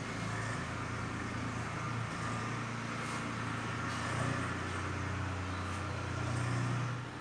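A motor vehicle engine running with a steady low hum. It grows a little louder near the end, then drops away suddenly.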